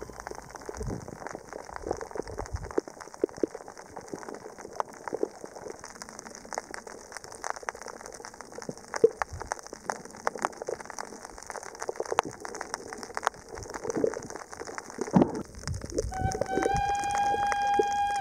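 Underwater crackle of a coral reef: dense, irregular clicks and pops with a few sharper snaps, over a steady high hiss. About two seconds before the end, music comes back in with a held flute-like note.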